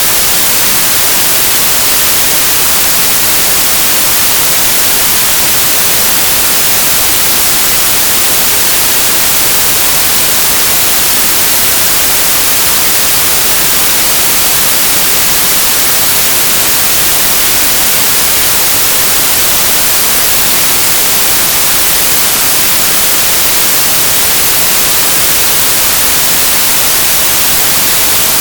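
Synthesized white noise: a steady, even hiss with no changes.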